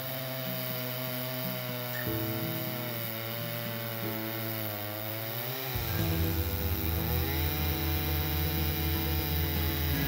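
Stihl MS 881 two-stroke chainsaw cutting through a large log, its engine pitch sagging and picking up again under load. It gets louder about six seconds in.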